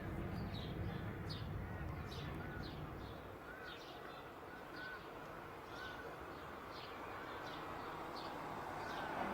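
Birds chirping, short quick calls about once or twice a second, over a steady low rumbling background noise.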